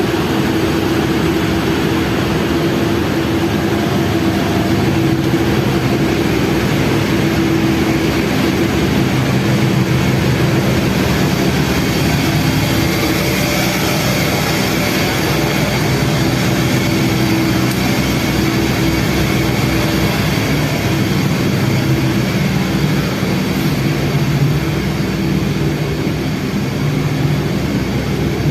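A vehicle engine running steadily, a constant hum over a rushing noise.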